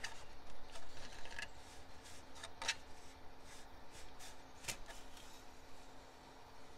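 Faint plastic clicks and rubbing as hands work around the top of a pickup's engine, with two sharper clicks about two and a half and four and a half seconds in, and the oil dipstick being drawn out near the end.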